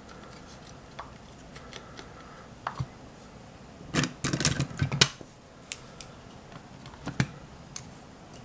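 Small plastic clicks as the snap-in plastic bridges are popped out of the circuit board, then a cluster of sharper clicks and knocks of parts and hand tools handled on the bench mat about four to five seconds in.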